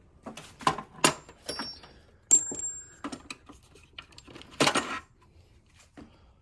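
Metal hand tools and sockets clinking and clattering as someone rummages through them: a string of sharp metallic clicks, some ringing briefly, with a louder clatter about three quarters of the way through.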